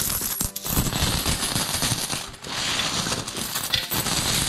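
Handfuls of loose coins clattering and clinking as they are scooped up from a pile and let fall, with brief pauses between handfuls.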